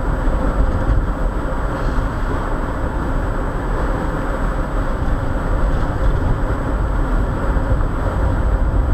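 Steady road noise inside a moving car's cabin: a continuous rumble of tyres and engine, with a faint steady high-pitched tone over it.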